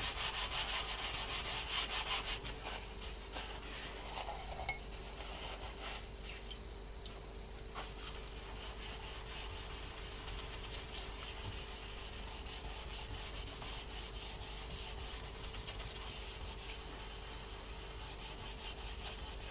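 Paper towel rubbing back and forth over a painted acrylic board, brisk and louder for the first couple of seconds, then softer steady rubbing.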